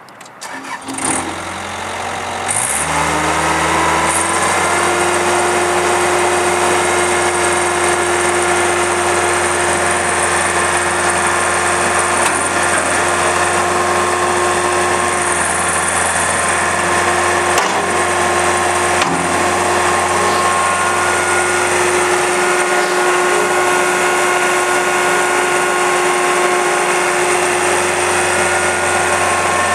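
Caterpillar 226 skid steer's diesel engine starting about a second in, its speed climbing for about three seconds, then running steadily.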